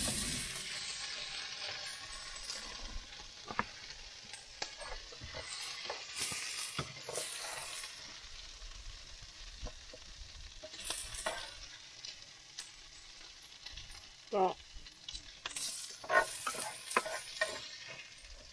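Diced potatoes sizzling in a frying pan, with a spatula scraping and tapping against the pan as they are stirred and served. Near the end come a few short squeaks.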